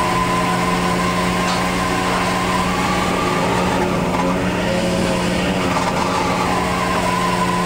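Fishing boat's engine and deck machinery running, a steady drone with a low hum and a higher whine over it.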